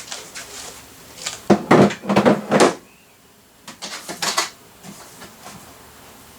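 Hard drives clattering and scraping against one another as they are picked through by hand in a pile, in two bursts of knocks about a second and a half in and again near four seconds.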